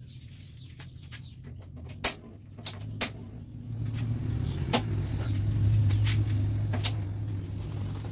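Two-burner gas stove being lit: several sharp clicks as the knob is turned, and a low steady rumble of the burner flame under the wok that swells up about four seconds in and holds.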